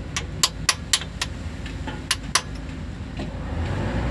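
Hammer striking a steel chisel, sharp metallic blows: a run of five at about four a second, then two more about two seconds in. A low rumble continues underneath.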